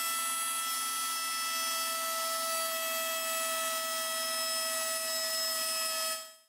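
Motor-driven chamfering tool, which cuts with the side of an end mill, running at a steady whine with a light hiss while the rivet-hole edges of a metal plate are chamfered against it. The motor cuts off just before the end.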